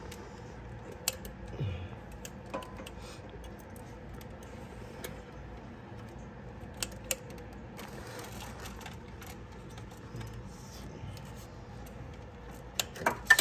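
Scattered metallic clicks and clinks of a hose clamp tool being worked onto a spring hose clamp on a radiator hose, with a quick cluster of louder clicks near the end.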